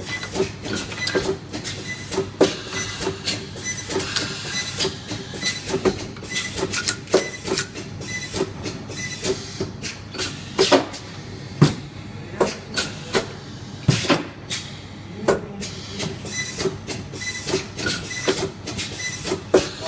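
An automatic commutator armature welding machine running: a rapid, irregular clatter of sharp clacks and knocks from its actuators and transfer mechanism, several a second and some louder than the rest, over a steady machine hum.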